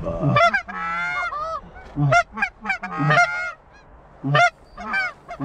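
Canada goose honks and clucks: a rapid series of short, sharply inflected calls, some overlapping, with one longer drawn-out call about a second in and a brief lull past the middle.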